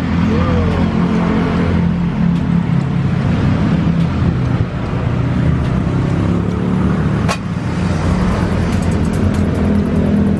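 Background music with a deep, steady bass line.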